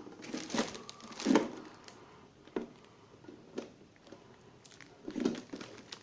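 Plastic toilet cistern being handled and set down, giving a few scattered light knocks and clicks of plastic as a rubber washer and outlet fitting are pushed onto its base.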